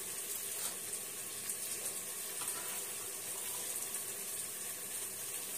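Steady, even sizzle of chopped potatoes, tomatoes, onions and peanuts frying in oil in an open pressure cooker, with spice powder just added.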